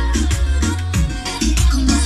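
Music with a heavy bass line and a steady beat, played loud through a home stereo's speakers and subwoofer.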